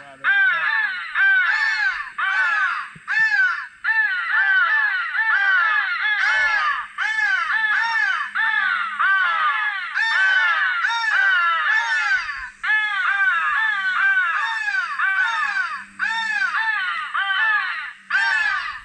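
Crow call playing a 'crow battle' sequence: harsh crow caws in quick succession, several a second, each rising then falling in pitch, with only brief gaps.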